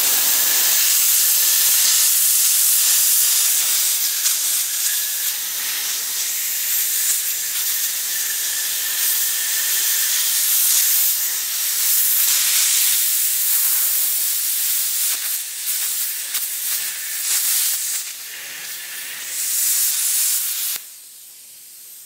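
Plasma cutter cutting steel, a loud steady hiss of air and arc that wavers as the torch works. It cuts off suddenly near the end.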